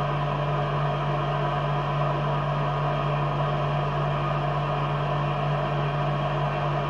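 CO2 laser cutter running while it cuts plywood: a steady machine hum with a low drone, unchanging throughout.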